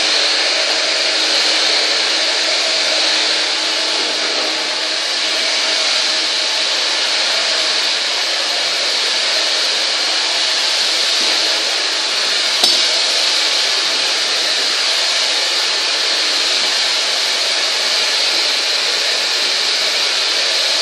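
Handheld hair dryer running steadily during a blow-dry. One sharp click about halfway through.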